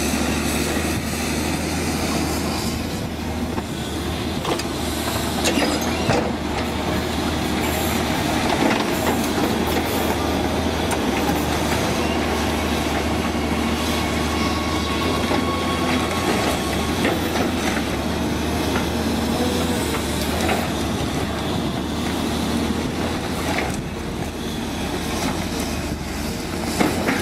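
Cat 325DL excavator's diesel engine running steadily under load while its demolition grapple grabs, scrapes and drops broken concrete and steel rebar, with irregular clattering and metallic knocks from the debris.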